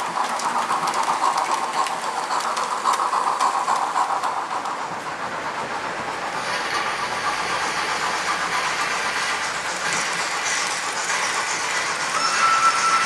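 Model railway coaches rolling past on the layout track, their wheels clicking over the rail joints. About six seconds in, the sound changes to the model steam locomotives' digital sound decoders, with steam hiss and a brief steady tone near the end.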